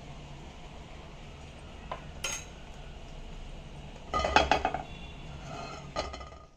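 A metal spoon clinking against a frying pan and dishes while oil is spread: a few scattered clinks, with a louder cluster of ringing clinks about four seconds in, over a faint low hum.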